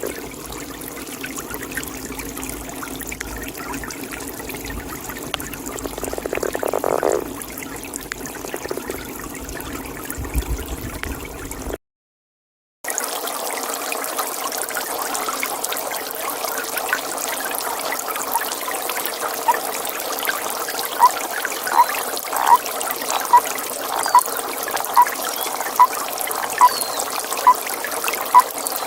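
Water trickling steadily, cut off by a brief dropout to silence about twelve seconds in. After it, a toad calls in short, evenly spaced notes, a little more than one a second, over steady pond ambience for the last third.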